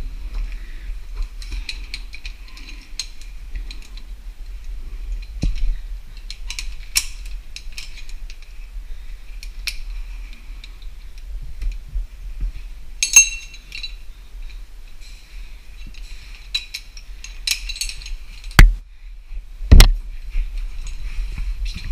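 Metal climbing gear clinking and rattling in a string of small clicks, with two loud sharp knocks about a second apart near the end, over a low rumble.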